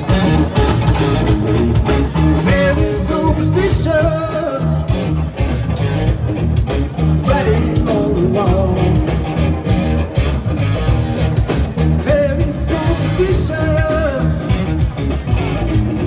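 Live blues-rock band playing: electric guitar, bass guitar and a drum kit keeping a steady beat.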